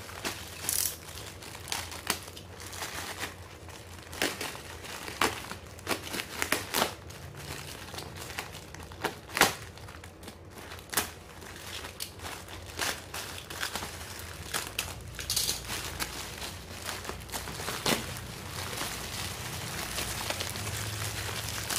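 Thin plastic courier mailer bag crinkling and crackling as it is cut and torn open by hand, with many irregular sharp crackles.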